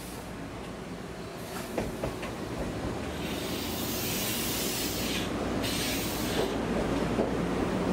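Kumamoto Electric Railway 6000-series electric train (ex-Toei 6000) rolling slowly in alongside the platform, its running noise growing louder. A loud hiss starts about three seconds in, breaks off briefly and stops a little after six seconds.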